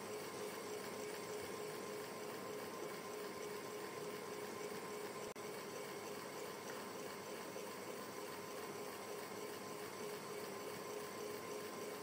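Electric fan running steadily: an even whooshing noise with a faint steady hum beneath it, broken by one brief dropout about five seconds in.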